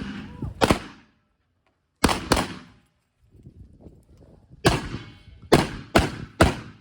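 Semi-automatic 12-gauge shotgun firing a stage string, about seven shots in irregular groups. One shot, a quick pair about a quarter second apart, a pause, then a fast run of four, each shot with a sharp report and an echoing tail.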